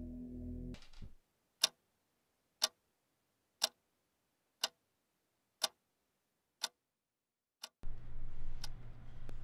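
Clock ticking steadily, one sharp tick a second, eight ticks in all. Music cuts off about a second in, and a low hum of room tone comes in near the end.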